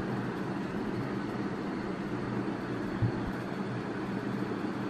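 A steady low hum, with one short knock about three seconds in.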